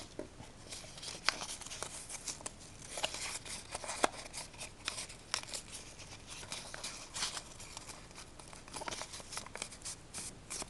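Paper being folded and creased by hand: irregular rustling with many short, sharp crinkles.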